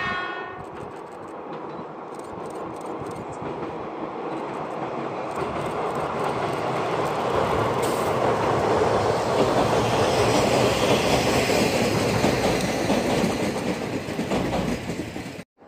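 Passenger train crossing a steel girder bridge: wheels clattering over rail joints and the bridge rumbling. The sound grows louder as the train approaches, is loudest as it passes, then cuts off suddenly near the end.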